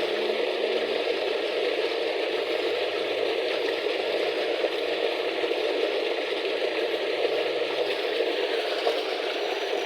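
Steady rushing noise without pauses.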